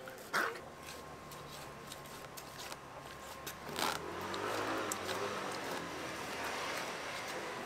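A motor vehicle's engine running steadily nearby, with two sharp knocks, one just after the start and one about four seconds in.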